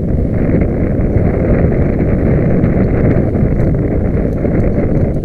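Loud wind buffeting on the microphone: a dense, even low rumble with no clear engine note.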